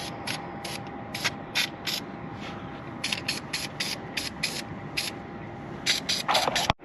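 Aerosol anti-corrosion spray hissing from the can in many short spurts onto battery terminals and wiring connections, to keep them from corroding again. A faint steady hum runs underneath.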